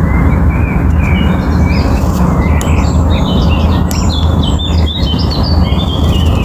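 Many small birds chirping and twittering, with quick high trills close together, over a loud, steady low rumble.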